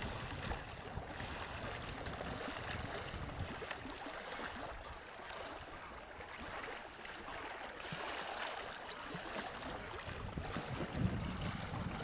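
Ambience of open water lapping, with wind gusting on the microphone; the gusts grow stronger near the end.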